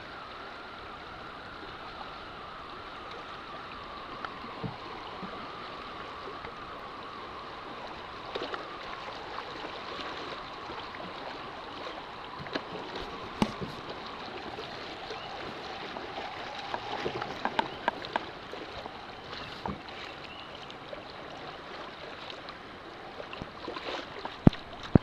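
River water rushing and lapping against a small paddle boat drifting downstream, a steady even rush. Scattered knocks come through it, a cluster of them past the middle and several loud ones near the end.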